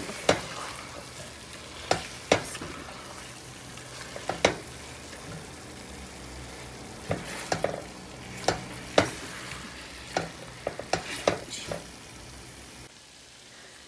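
Boiled chicken pieces frying in onion-tomato masala with a steady sizzle, stirred with a slotted spatula that scrapes and knocks against the pan a dozen or so times at uneven intervals. The sizzle drops away near the end.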